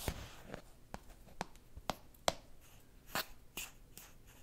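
A scoop scraping and knocking inside a metal tin of ground espresso coffee while coffee is scooped out: a run of short, sharp clicks, about two a second.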